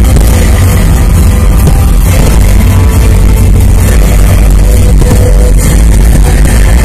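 Fireworks display: aerial shells bursting and crackling in a dense, continuous barrage, recorded very loud, with music mixed in.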